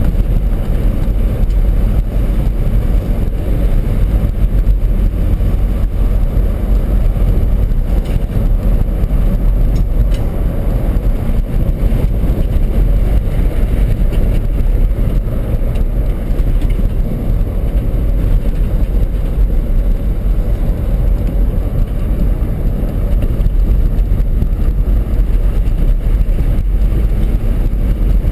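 Inside the cab of a 2006 Ford F-150 driving along a dirt road: a steady, loud low rumble of engine and tyres, with a few faint clicks or rattles.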